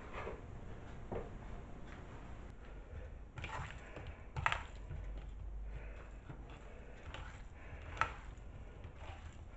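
Hands mixing raw chicken strips and sliced chorizo in a bowl: faint handling sounds with a few light knocks, the loudest about four and a half seconds in and again at about eight seconds.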